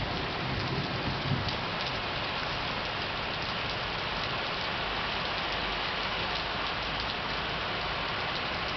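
Heavy rain pouring steadily in a thunderstorm, a dense even hiss with scattered drop clicks, and a brief low rumble about a second in.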